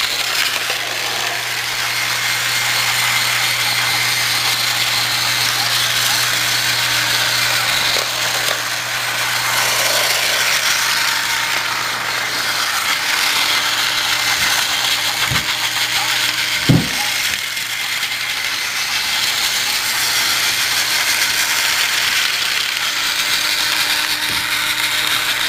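Motorized Thomas & Friends TrackMaster toy train running on plastic track: a steady whir from its small battery motor and gears. Two short knocks come about two-thirds of the way through.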